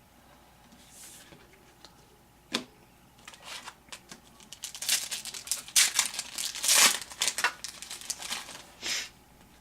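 An Upper Deck SPX basketball card pack wrapper being torn open and crinkled. One sharp click comes about two and a half seconds in, then a run of irregular crackling rips and crinkles through the rest.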